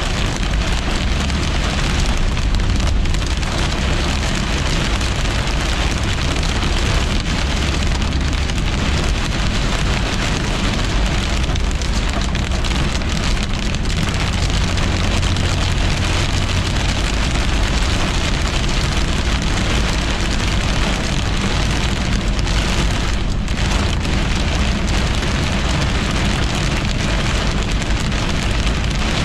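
Heavy storm rain pelting a car's windshield and roof, heard from inside the moving car, with a steady low road rumble underneath.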